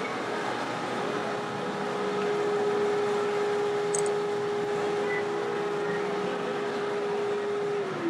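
Busy exhibition-hall background noise with a steady whine running under it; near the end the whine drops in pitch and stops, like a small electric motor winding down.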